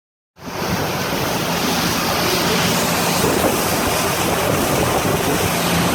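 A motorised craft running through floodwater: a steady rush of water and wind noise on the microphone over a low, steady engine hum, starting abruptly just after the start.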